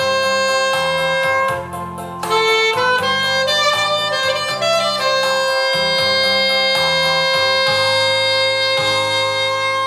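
Saxophone solo playing a slow melody over low chordal accompaniment, moving through several notes and then holding one long note from about five seconds in.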